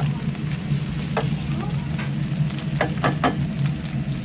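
Thin-sliced pork belly sizzling as it fries in a pan, with a few sharp clicks, three of them in quick succession about three seconds in, over a steady low hum.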